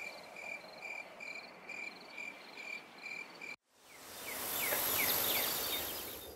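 Crickets chirping steadily, about two chirps a second, cut off abruptly about three and a half seconds in. After a moment of silence, a rush of noise swells and fades, with a few short falling chirps in it.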